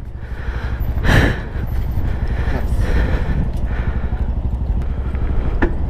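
Motorcycle engine idling with a low, even pulse.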